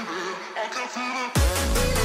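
Electronic dance music backing track: a short break with only melody and no drums or bass, then the heavy bass and beat drop back in about a second and a half in.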